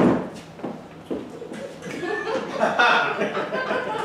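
Audience chuckling and laughing, with scattered voices.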